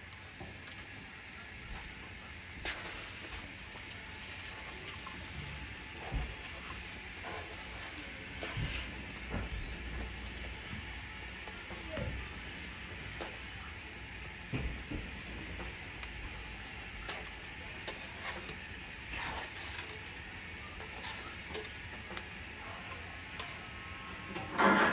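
Hot pan juices sizzling steadily in a roasting dish around a whole chicken. Scattered soft taps and thuds come as chopped bell peppers and onion drop off a cutting board into the dish.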